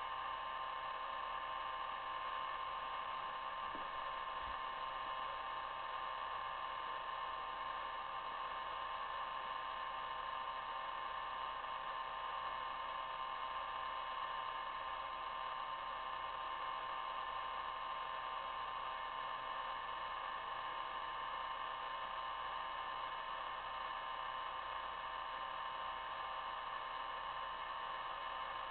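Steady, even hiss with a few faint steady whining tones in it, with no distinct sounds standing out.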